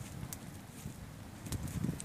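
Open fire of dry leaves and fronds burning, with scattered sharp crackles and pops over a low rumble of flame.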